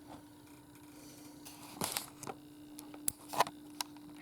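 Handling noise: a handful of irregular clicks and knocks over a faint steady hum, the loudest about three and a half seconds in.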